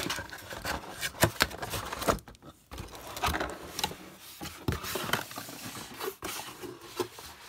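Rigid black cardboard box and its packaging insert handled and slid across a marble tabletop, with rustling and a series of knocks and taps. The box is pushed off the table onto the floor.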